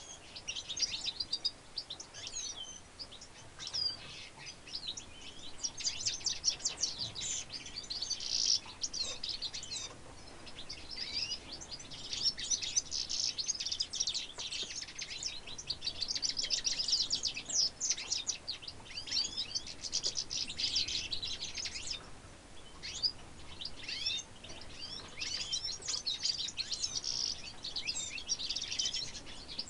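Goldfinch × redpoll hybrid finch singing: long, high-pitched phrases of rapid twittering notes. The song breaks off briefly about a third of the way in and again about two-thirds of the way through.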